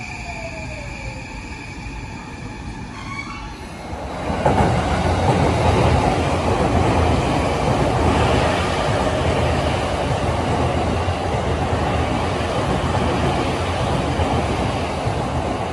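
Electric limited express train running through the station at speed. It comes in with a loud rushing rumble of wheels on rails about four seconds in, after a quieter start with a few faint steady tones and one falling tone.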